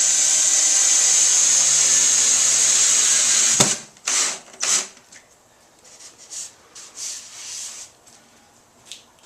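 Power drill driving drywall screws to countersink them into a drywall patch. It runs steadily for about three and a half seconds and stops with a click. Two short bursts follow to set the screw just below the surface, then fainter handling sounds.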